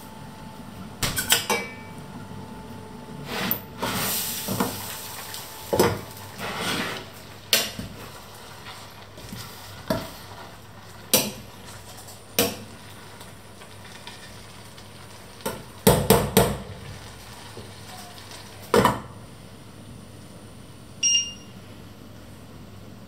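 Spoon and lid clinking and knocking against stainless steel pots, with a stretch of stirring in a pot about four to seven seconds in. Near the end, a single short electronic beep from the hob's touch controls.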